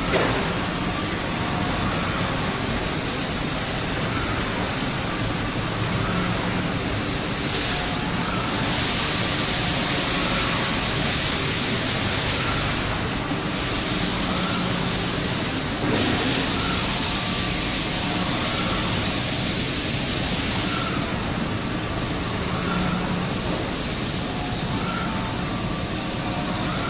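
Five-axis CNC router spindle cutting a mold block: a steady machine noise with a faint high whine, growing brighter and easing back several times as the head moves through the cut.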